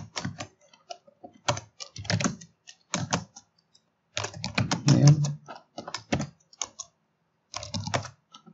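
Computer keyboard typing in quick runs of keystrokes, broken by short pauses.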